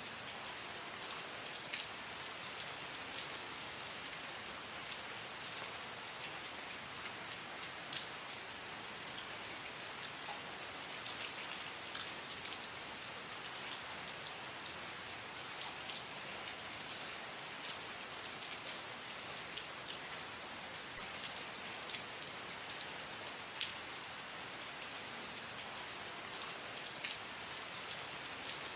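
Steady rain falling, an even hiss with many scattered drops ticking on a surface.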